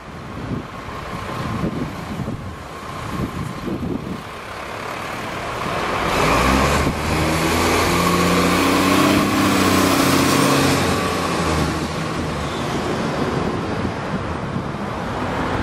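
Road traffic passing close by, with cars going by. From about six seconds in, an Isuzu light truck's engine goes past with a loud, steady drone for several seconds, then fades back into lighter traffic noise.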